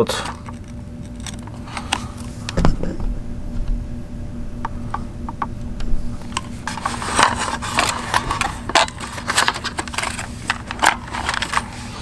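Small plastic clicks and taps of fingers working wire-harness plugs and a ribbon cable out of their sockets on the FrSky Taranis X9D Plus transmitter's circuit board. There is one low knock about two and a half seconds in, and the clicking gets busier in the second half.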